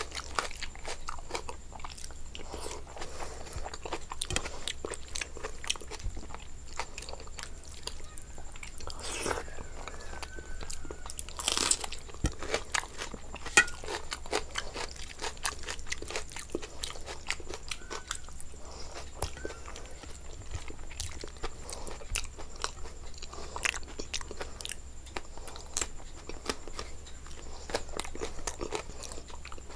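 A person chewing and biting crunchy food up close to the microphone, a steady run of short crunches and wet mouth clicks.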